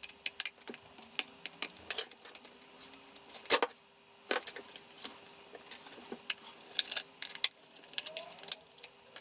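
Fast-forwarded sound of a Toshiba Portégé R930 laptop being taken apart: quick, irregular small clicks and taps of tools, screws and plastic covers, over a faint steady hum.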